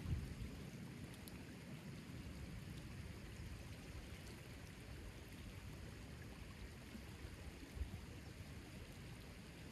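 Steady rushing of moving water, with a single low thump about eight seconds in.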